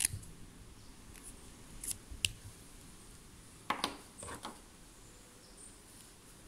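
Light handling sounds of a paper drawing tile and a Micron pen on a wooden desk: a few short clicks and rustles, with a small cluster of them a little past halfway as the pen is picked up.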